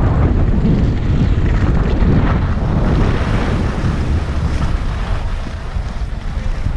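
Loud wind buffeting the microphone, a dense rumbling roar that eases slightly near the end.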